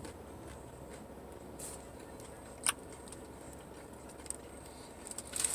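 Low steady background hum with a few brief clicks, the sharpest about halfway through.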